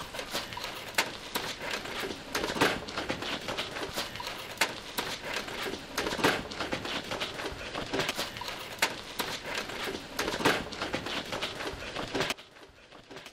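Dense, irregular clattering, knocking and squishing as food and other objects are forced into and rubbed over a plastic VHS player, with a few sharper knocks; it stops abruptly near the end.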